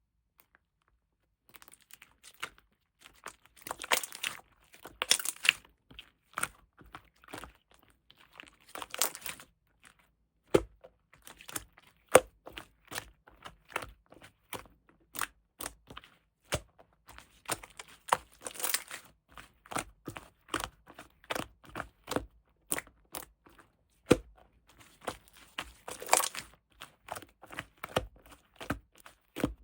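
Slime being squeezed and pressed by hand, giving crackling, crunchy bursts and many sharp pops and clicks. The sound starts after a short silence.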